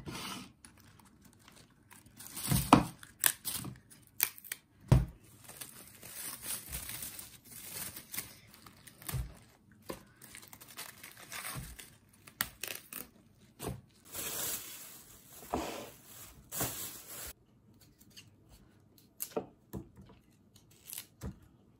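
Leafy vegetables being snapped and torn apart by hand on a wooden chopping board: bok choy leaves, napa cabbage in crinkling cling film, broccoli florets. Irregular sharp snaps mixed with rustling.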